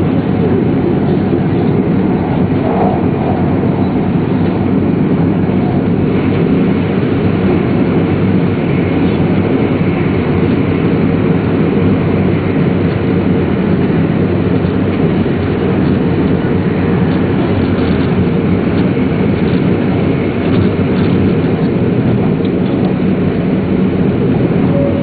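Shinkansen train running at high speed, heard from inside a passenger car: a steady rumble and rush of wheels on rail and air along the body.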